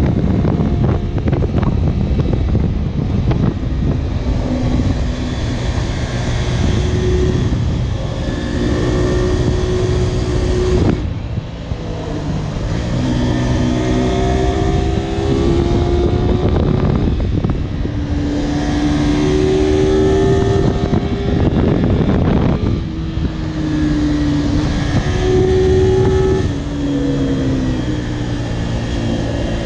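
Honda VTR250 250 cc V-twin motorcycle under way, its revs climbing and then dropping back at each upshift, three times, with wind rush over the microphone.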